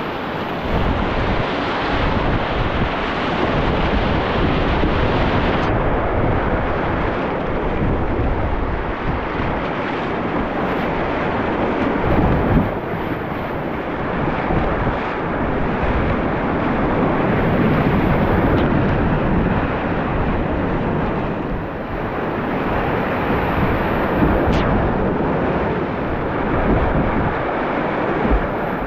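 Whitewater rapids rushing loudly and steadily close around a kayak, with wind buffeting the action camera's microphone and a few louder splashes from paddle strokes.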